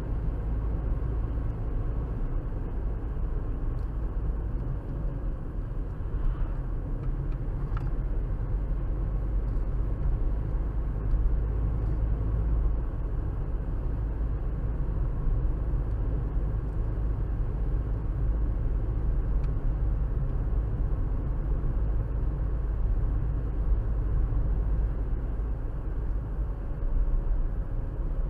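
Steady low rumble of a moving car's road and engine noise, heard from inside the cabin through the dashcam's microphone.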